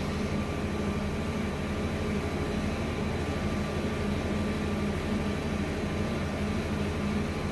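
A steady low mechanical hum with an even rushing noise over it, unchanging.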